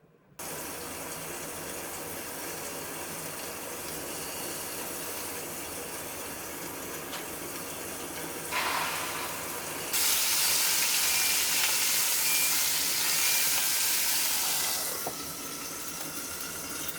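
Running water: a steady hiss that gets louder about ten seconds in and eases off again near the end.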